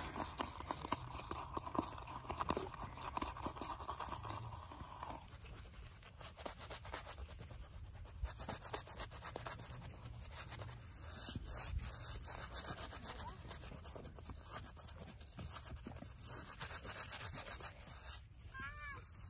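Shaving brush whipping lather in a plastic cup, a fast, dense scratchy rubbing of bristles, then working the lather over a stubbled beard near the end.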